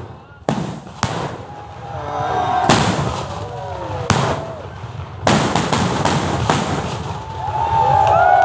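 Meriam talang, traditional Malay village cannons, firing a run of loud booms. There are about eight or nine blasts, several of them in quick succession around the middle.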